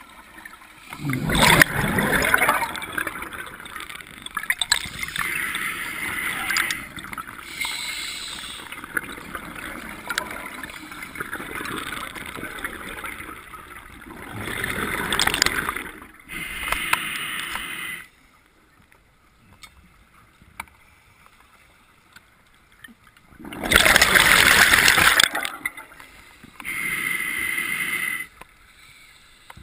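A scuba diver breathing through a regulator underwater. Gurgling surges of exhaled bubbles alternate with hissing inhalations that carry a faint steady whistle, over several breaths. There is a pause of about five seconds late in the sequence.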